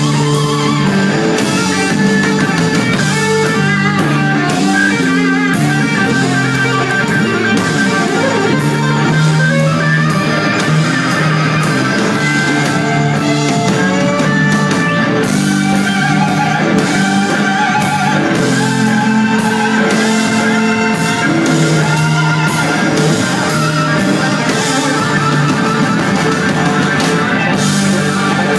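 Live blues-rock band playing, led by a 1959 Gibson Les Paul Standard electric guitar through a Bogner Ecstasy amplifier, its notes bent and shaken with vibrato over drums, bass and keyboard. There is no singing.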